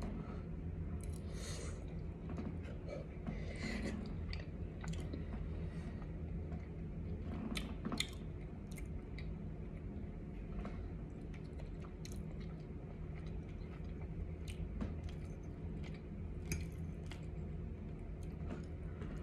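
Close-up chewing and mouth sounds of someone eating a soft, moist cornbread dressing, with scattered sharp clicks, over a steady low hum.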